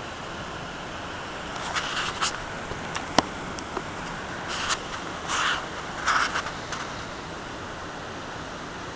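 Steady rush of a rocky creek and waterfall, with bursts of scraping and rustling and one sharp click from the handheld camera being handled and turned around, about two to seven seconds in.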